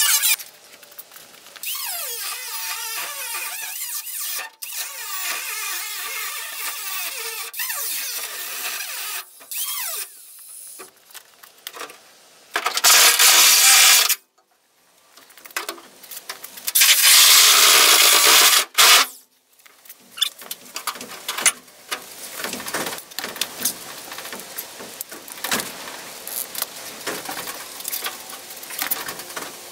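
Angle grinder cutting through the sheet-steel rear quarter panel of a 1964 Ford Galaxie, running in stretches with two loud bursts of a couple of seconds each near the middle. Between and after the cuts come irregular clicks and knocks of handling the tool and panel.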